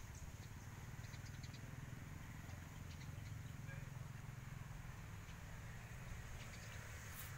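Quiet outdoor background noise: a steady low rumble with a few faint light ticks.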